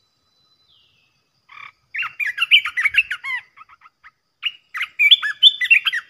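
Bulbul singing: quick, bubbly runs of whistled notes that slide up and down, starting about a second and a half in, with a short break near four seconds before a second burst.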